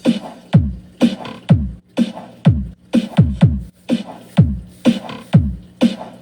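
Remix dance music: a heavy bass kick whose pitch drops with every hit, about two hits a second, over a steady low tone.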